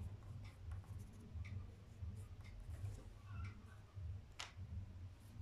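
White pastel stick scratching on black paper in short, faint drawing strokes, one stronger stroke near the end, over a low steady hum.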